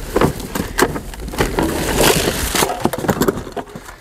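Boxes and packaged items being pulled and shifted around in a dumpster. There are several sharp knocks and clatters, then a stretch of rustling and scraping in the middle that eases off near the end.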